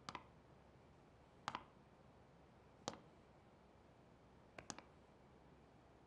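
Four slow footsteps of heeled boots on a hard floor, each a sharp double click, about a second and a half apart.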